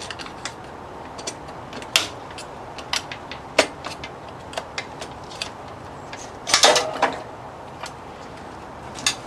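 Metal hand tools clicking and clinking against the steel frame and bolts of a Nissan Leaf battery module stack: scattered sharp clicks, with a louder clatter of metal about six and a half seconds in.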